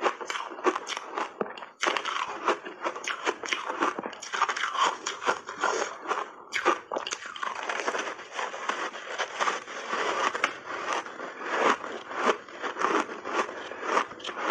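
Crunching and chewing of refrozen block ice coated in matcha powder: dense, rapid crunches, several a second, with a brief pause about two seconds in.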